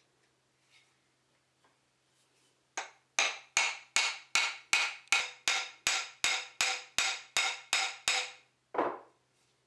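Even hammer strikes on the butt end of a pignut hickory chisel handle, seating it in the socket of a timber-framing slick. There are about fifteen ringing taps at close to three a second, then one duller knock near the end.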